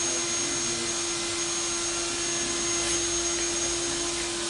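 Steady hum of running machinery in a large shop building: one constant droning tone and a thin high whine over an even noise, unchanging throughout.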